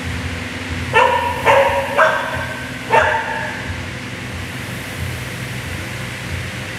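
A dog barks four times in quick succession, starting about a second in, over the steady whir of an air-rowing machine's flywheel fan.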